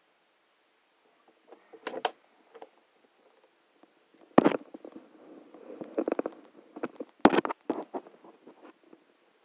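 Kitchen clatter of a stainless-steel kettle and a plastic gallon water jug being handled on a gas stove: scattered light knocks starting about a second and a half in, two sharp loud knocks a few seconds apart, and uneven rattling between them.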